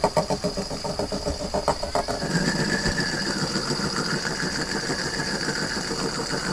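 Tiny battery-powered RC stunt car running inside a clear plastic ball: its small electric motor whirs as the ball rolls on a wooden tabletop. A few light knocks come just before two seconds in, after which a higher, wavering whine joins the whir.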